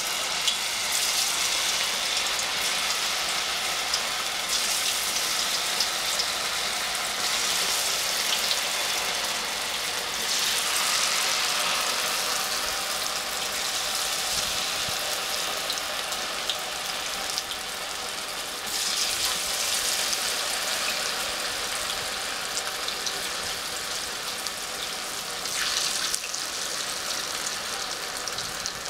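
Batter-coated cauliflower florets deep-frying in hot oil in a kadhai: a steady sizzle that swells louder several times.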